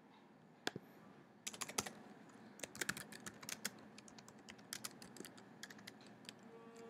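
Typing on a computer keyboard: a couple of separate key taps, then an irregular run of quick keystrokes from about a second and a half in.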